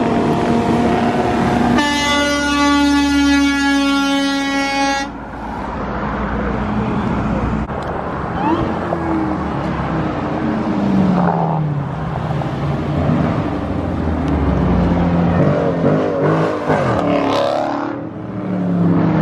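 A vehicle horn held for about three seconds, starting about two seconds in, over a car engine running with its pitch rising and falling.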